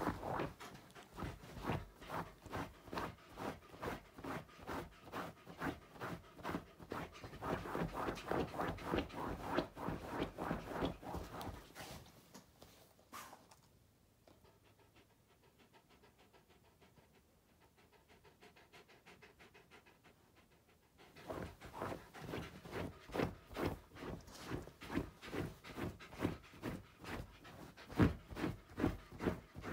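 Wolfdog panting in quick, even breaths, about two or three a second; the panting stops for several seconds in the middle and then starts up again.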